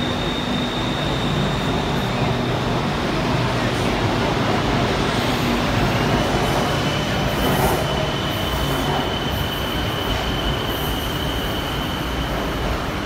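BTS Skytrain electric train pulling out past the platform screen doors, with a steady rumble of wheels and motors. A high steady whine stops after about two seconds, and a slightly lower whine starts about six seconds in and holds.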